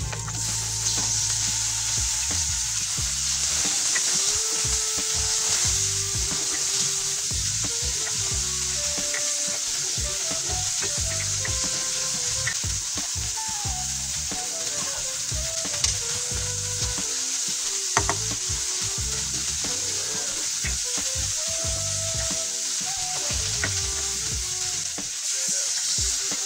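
Chopped tomatoes sizzling steadily as they are stir-fried with sautéed onion, garlic and ginger in hot oil in a pan, with the odd sharp tap of the spatula against the pan. Near the end, water is poured in.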